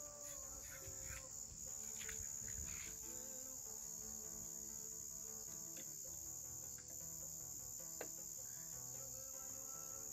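Crickets chirring in a steady, continuous high trill, with a few light clicks and knocks from handling a metal cake pan filled with sand.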